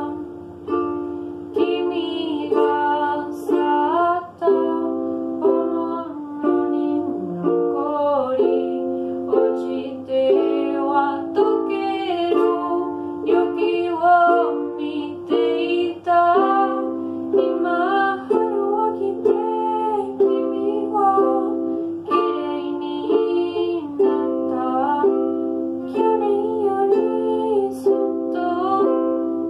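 A young woman singing a song while playing a ukulele, her voice carrying the melody in phrases over the plucked chords.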